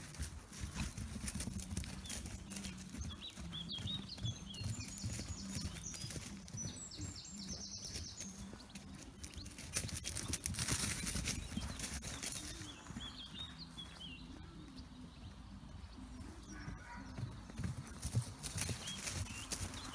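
Hoofbeats of a two-month-old paint horse foal galloping and bucking on grass pasture.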